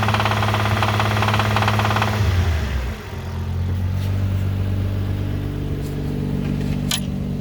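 Infiniti G35's V6 engine held at about 2,000 rpm under slight load with a rapid, even knock, then dropping back to idle about two seconds in. The owner is unsure whether the knock is rod knock or a starter or transmission problem.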